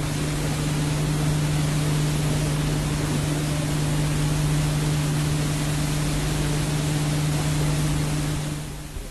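Steady hiss with a constant low electrical hum and its overtone, the noise of an old broadcast recording over a title card; the hum cuts off near the end.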